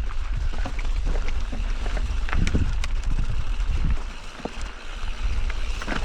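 Loaded mountain bike moving over rocky trail: scattered clicks and rattles from the tyres and bike over stones, with wind buffeting the microphone as a steady low rumble that eases about four seconds in.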